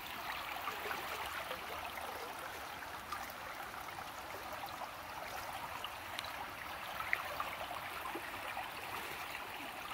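Shallow stream water babbling steadily over stones and around roots.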